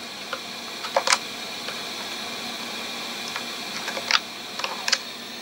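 SMD hot-air rework blower running with a steady hiss while a zero-ohm resistor is being swapped on a hard-disk circuit board. Metal tweezers click against the board a couple of times about a second in, and again several times between four and five seconds in.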